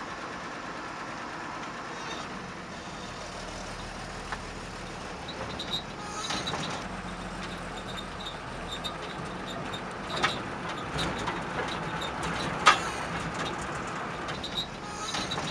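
Outdoor ambience: a steady background of distant traffic, with a few short sharp knocks, the loudest about ten and twelve and a half seconds in.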